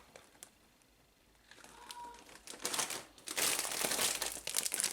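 Plastic food packaging crinkling as it is handled, starting about a second and a half in and getting louder near the end.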